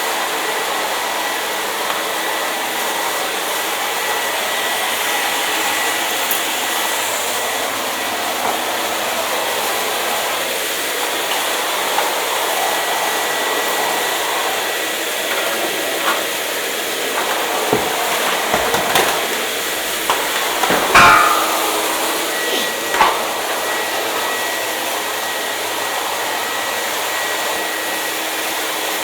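Hair dryer running steadily: a continuous blowing hiss with a faint steady motor whine. A few sharp knocks and clicks come a little past the middle.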